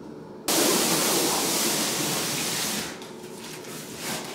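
Large cardboard carton sliding across a hardwood floor: a steady scraping hiss that starts suddenly about half a second in and stops about two and a half seconds later, with a shorter scuff near the end.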